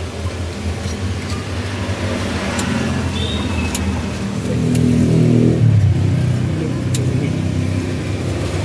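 Street traffic drone, with a motor vehicle's engine swelling as it passes about five seconds in. A few sharp metallic clicks of tongs against a steel wok.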